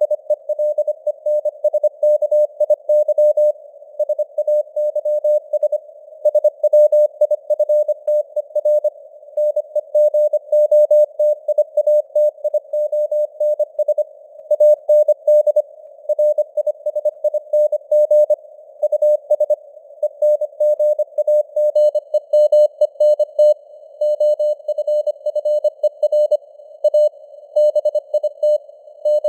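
Morse code sent at 25 words per minute as a single steady-pitched tone keyed on and off in rapid dots and dashes. A faint hiss of simulated radio noise sits under it, and the signal strength rises and falls slightly (simulated fading, QSB).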